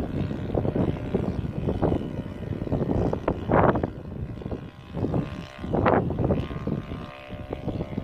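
Distant drone of a radio-controlled Piper Cub's 160-size twin-cylinder four-stroke nitro engine in flight, a faint steady tone. Heavy gusting wind buffets the microphone over it, with strong gusts about three and a half and six seconds in.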